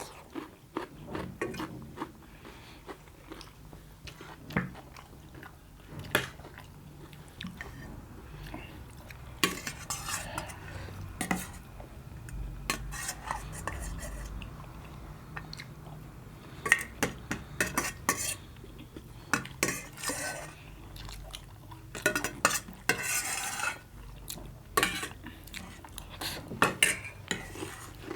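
Spoon and cutlery clinking and scraping against dishes while food is stirred and mixed, with scattered sharp clicks and some chewing between them.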